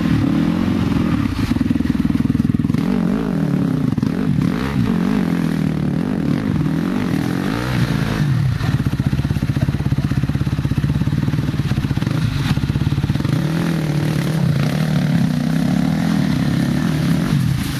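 Dirt bike engine revving hard under load as the bike is pushed and ridden up a steep muddy slope, its pitch swinging up and down for the first half, then holding steadier.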